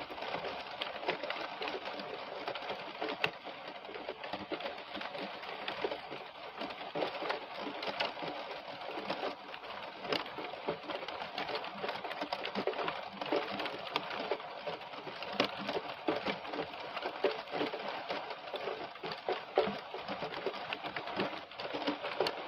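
Heavy rain falling steadily, a dense pattering of countless drops.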